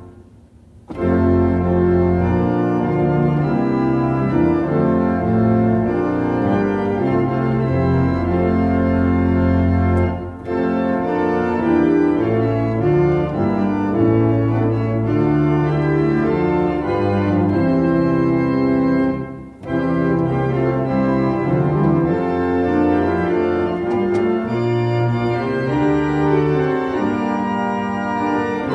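Church organ playing a hymn tune in sustained chords over a low bass line, with a brief break between phrases about ten seconds in and again near twenty seconds.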